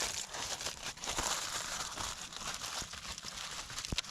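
Aluminium foil being crinkled and crumpled by hand as it is shaped into a bowl, a steady crackle of small clicks.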